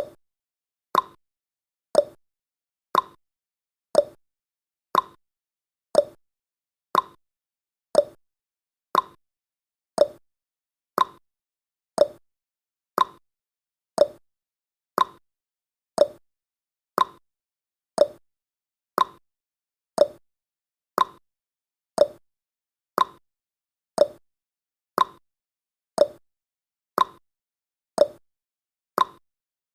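Clock ticking sound effect of a countdown timer: short, sharp ticks exactly once a second, alternating higher and lower in pitch like a tick-tock.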